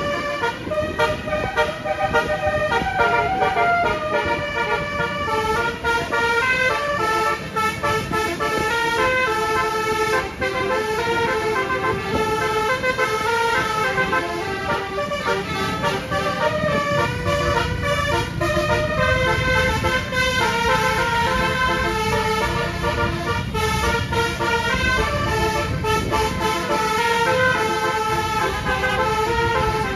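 Bus telolet horn, a Basuri-type multi-tone musical air horn, playing a run of stepped notes like a tune almost without pause, over the low rumble of road and engine noise.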